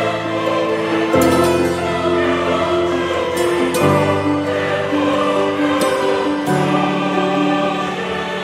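Background music of slow, held chords that change about every two and a half seconds.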